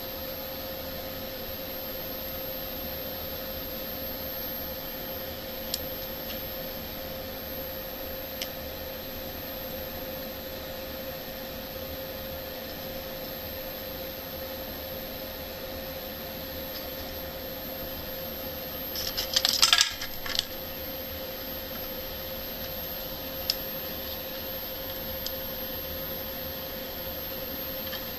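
Small hard objects clattering briefly about 19 seconds in, over a steady hiss with a faint constant tone, with a few light clicks elsewhere.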